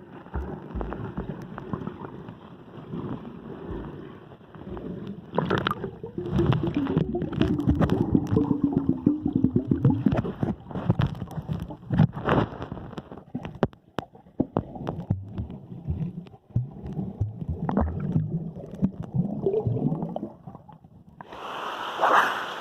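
Muffled underwater sound of a dive in a waterfall pool: irregular bubbling, gurgling and churning water with occasional knocks. About 21 seconds in, the sound suddenly opens up into the steady rush of the waterfall as the microphone comes above the surface.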